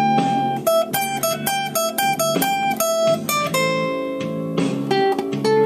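Steel-string acoustic guitar played solo by hand: a quick run of single plucked notes in a blues riff, then about halfway through several notes left ringing together before more plucking near the end.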